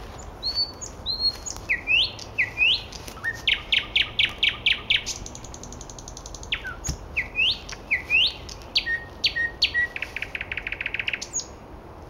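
Nightingale singing: a string of separate phrases of rising whistles and runs of rapid repeated notes, ending in a fast trill of about ten notes a second.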